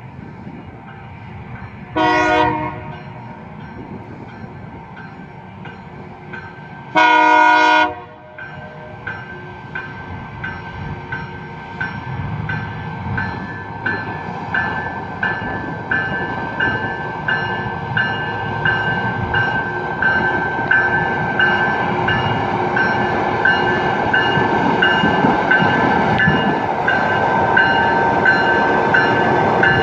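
LORAM rail grinder's air horn sounding a short blast, then a longer one a few seconds later. After that its electronic bell rings steadily, a little faster than once a second, while the rumble of the approaching train grows louder.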